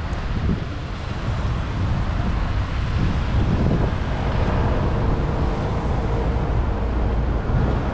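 City traffic running steadily, with wind buffeting the microphone; a faint engine hum comes in about halfway through.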